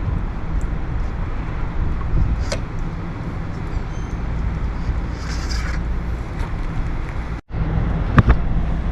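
Steady low mechanical hum with a noisy background and a few brief knocks. The sound cuts out completely for an instant about seven and a half seconds in.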